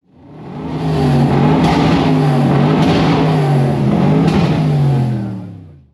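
Car engine revving, its pitch climbing and falling several times, fading in at the start and out at the end.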